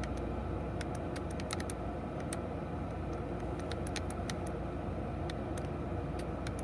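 Holden VE Commodore's 3.0-litre V6 idling, heard from inside the cabin as a steady low hum, with scattered light clicks over it.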